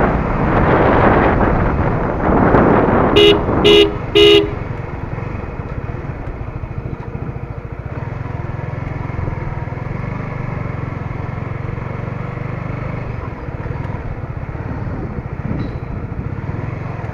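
Sport motorcycle riding along with wind rushing on the microphone, a horn giving three short toots a little over three seconds in; then the engine runs quietly at low speed as the bike slows and rolls to a stop.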